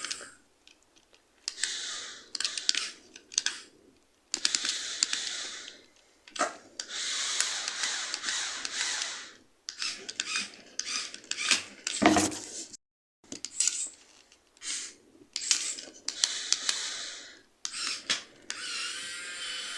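Small motor and plastic gears of a Lego Technic crane-excavator model whirring and rattling in repeated short runs of one to three seconds, with clicks between them. One sharp knock about twelve seconds in.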